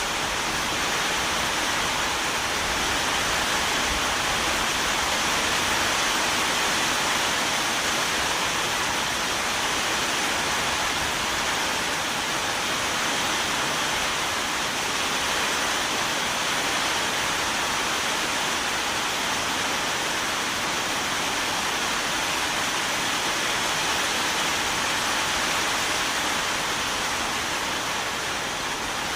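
Steady, heavy rain: an even hiss with no single drops or other events standing out.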